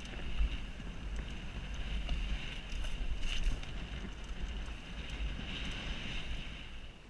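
Wind buffeting a helmet-mounted GoPro on a mountain bike ride, a heavy low rumble under a steady high hiss with a few light rattles; it drops away sharply near the end.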